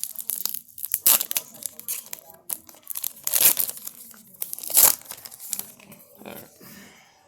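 Baseball cards and their plastic pack wrapper being handled: crinkling and rustling in irregular bursts, loudest about three and a half and five seconds in, then dying down.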